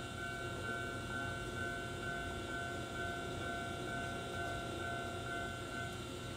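Wakayama Electric Railway 'Ichigo' strawberry electric train rolling slowly to a stop at a station platform with a low rumble. A warning bell rings in even strokes about twice a second over it, most likely a level-crossing bell, and stops near the end.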